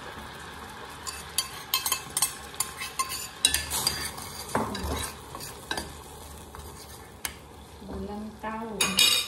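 Metal spoon stirring green peas into a simmering curry in a stainless-steel pot, clinking repeatedly against the pot for several seconds over the steady simmer. A brief low, pitched tone sounds about eight seconds in.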